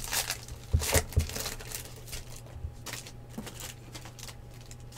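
Rustling and crinkling of trading card packaging being handled. There are a few louder crinkles in the first second or so, then fainter handling noise.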